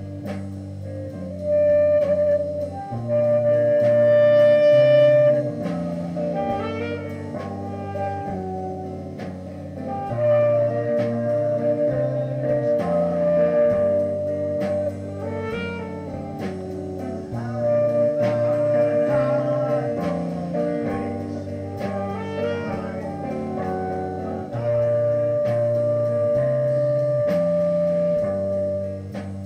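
A band playing live without a bass: a drum kit keeps a steady beat under chords that change in a repeating cycle. A melody phrase comes round about every seven seconds, each time settling on a long held note.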